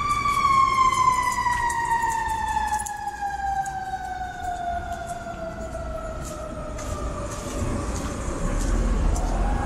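Emergency-vehicle siren wailing: one long wail that peaks at the start and falls slowly in pitch over about nine seconds. City traffic rumble grows louder near the end.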